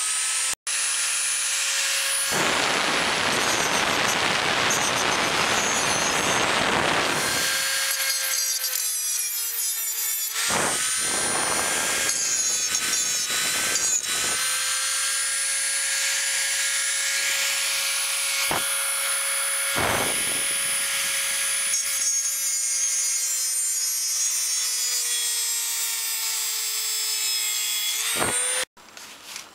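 A high-speed power tool running steadily with a high whine, working on a catalytic converter's seized steel studs. From about 2 to 7 seconds in, it grinds hard against the metal. Its pitch sags slightly under load a few times, and it stops shortly before the end.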